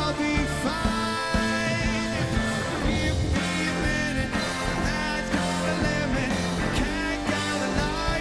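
Live rock band playing an instrumental passage: drums, bass and electric guitars, with a lead line of bent, wavering notes.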